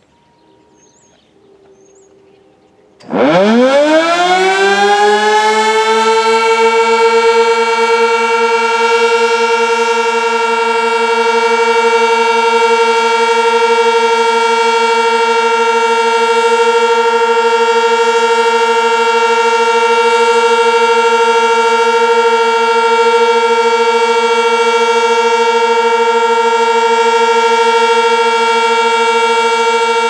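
Sentry 16V1T-B tornado siren starting up about three seconds in, its pitch rising quickly as the rotor winds up, then holding one steady loud tone: the Alert signal of a siren test.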